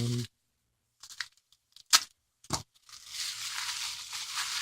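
Paper packaging being unwrapped by hand: a few short rustles and clicks, then, about three seconds in, steady crinkling and tearing.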